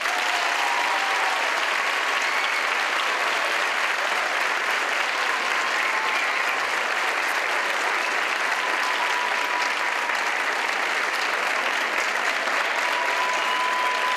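Theatre audience clapping steadily at the end of a dance performance.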